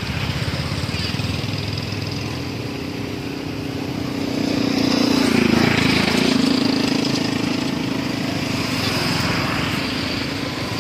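A motor vehicle engine running steadily, getting louder around the middle with a brief dip in pitch.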